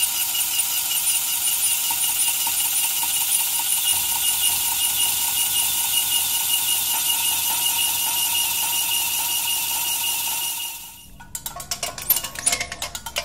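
Metal squeaking: a high, ringing squeal that pulses rapidly and keeps going for about eleven seconds. After a brief drop, a different, rattling and clicking metal squeak starts near the end.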